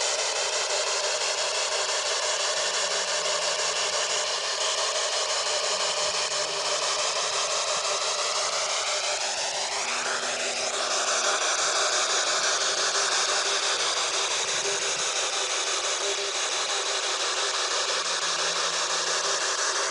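Continuous radio static from a handheld spirit box sweeping through stations, with faint low humming tones that come and go beneath it, which the ghost hunters take for a spirit humming.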